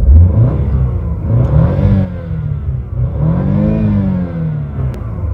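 BMW car engine revved in park: the pitch rises and falls twice, about one and a half seconds in and again around three and a half seconds.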